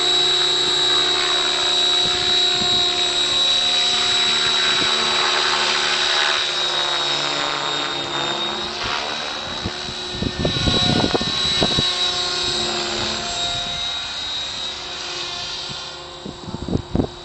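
Compass Atom 6HV electric RC helicopter flying: a steady high motor and gear whine with rotor noise, its pitch bending up and down mid-way as the helicopter manoeuvres, then fading as it moves off. Irregular low rumbling bursts come in about ten seconds in and again near the end.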